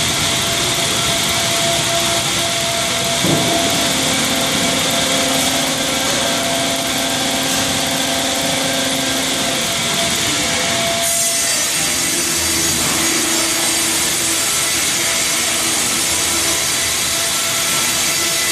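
Wravor 1200 Profi NB sawmill cutting line running, with saws cutting wood over a steady machine hum and conveyor noise. The sound shifts abruptly about eleven seconds in.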